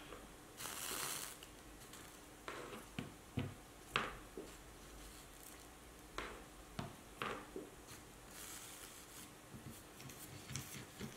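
Faint sounds of soldering copper-foiled stained glass seams with an electric soldering iron. Liquid flux hisses briefly under the hot tip twice, about half a second in and again near the end, between a scatter of small sharp clicks and taps of the iron and solder against the glass.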